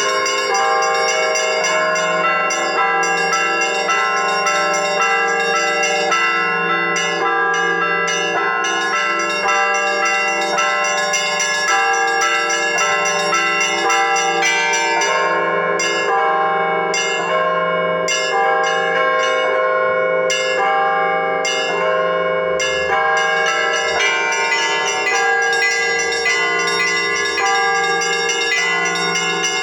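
Russian Orthodox church bells rung together: many bells struck in a quick, overlapping pattern, their tones ringing on into one another without a pause, over a steady low bell tone.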